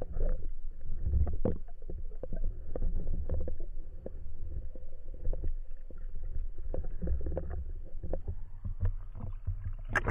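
Underwater sound picked up by a speargun-mounted camera: a steady low rumble of moving water with irregular clicks and knocks. At the very end it sloshes and splashes as it breaks the surface.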